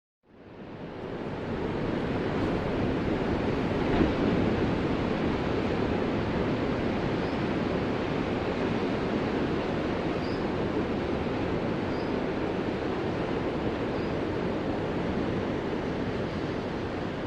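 Ocean surf washing in a steady, continuous rush, fading in over the first second or so and swelling slightly about four seconds in.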